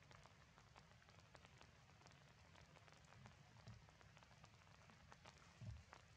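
Near silence: faint forest ambience with scattered light ticks and a soft low thump near the end.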